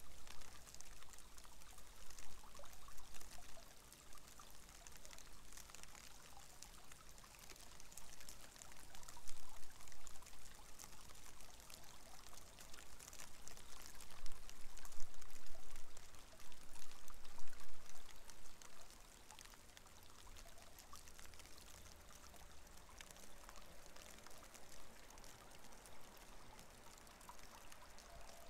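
Shallow water trickling and splashing along a concrete drainage channel, running over clumps of dead leaves with a fine, constant patter. It comes in louder, uneven surges through the first two-thirds and then settles to a quieter, steady trickle.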